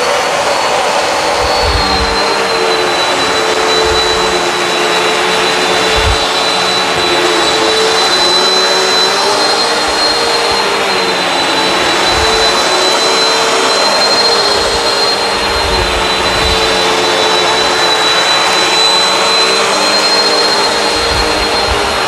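Bissell CleanView Swivel Pet upright vacuum running steadily while vacuuming, a constant rushing noise with a high whine that wavers slightly in pitch. Occasional low thumps come through as it is moved.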